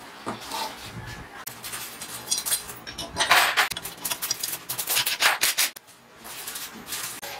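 Irregular metallic knocks, clatter and rubbing from a homemade steel mortising machine being handled as its feed lever is pulled, with a longer scraping rasp a few seconds in.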